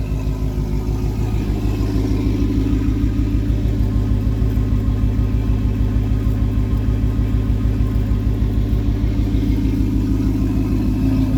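Audi RS4 with a rear-mounted turbo idling with its exhaust in the loud sport mode: a steady, evenly pulsing engine note that swells slightly about two seconds in.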